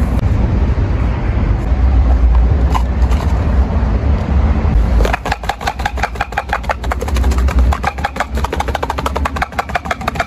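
A low steady rumble of wind and road noise. About five seconds in, a rapid, even run of light clicks starts, about ten a second, and lasts nearly to the end.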